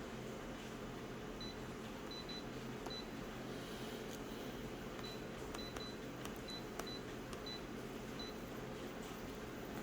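Steady low hum and room noise, with faint short high-pitched beeps at uneven intervals, a dozen or so, and a few light clicks.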